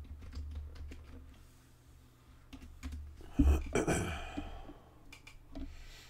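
Light metal clicks and taps as the X-shaped heat sink retaining bracket on the Xbox One S's metal shield is worked loose, with one louder clatter and brief ringing about three and a half seconds in.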